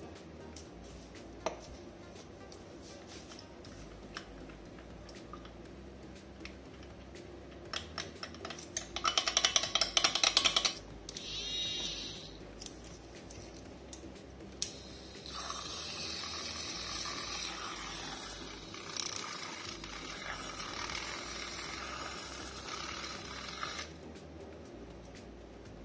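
A spoon stirring fast, clinking rapidly against a glass, then a handheld battery milk frother whirring steadily in the lemon-garlic drink for about eight seconds, whipping it to a foam. Background music throughout.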